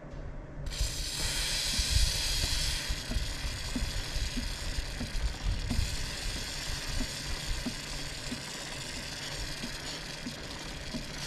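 Aerosol spray can hissing steadily as multi-purpose penetrant lube is sprayed through a straw onto a motorcycle drive chain, starting just under a second in and strongest soon after. Under it, faint ticking of the chain moving over the rear sprocket as the wheel is turned by hand.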